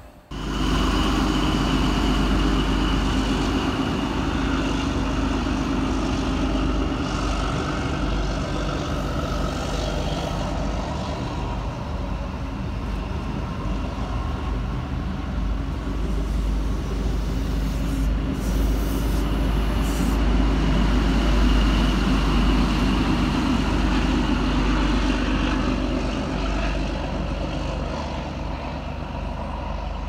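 Electric passenger train running past at close range: a steady rumble and rolling noise with a faint thin high squeal held through much of it, fading over the last few seconds as the train clears.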